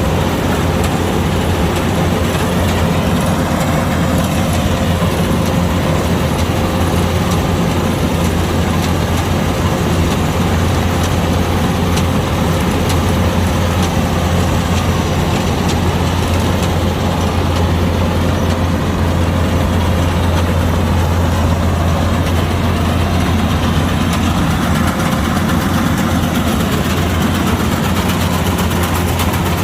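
Kubota DC-105X rice combine harvester running steadily under its diesel engine: a constant low hum with a faint steady whine over it.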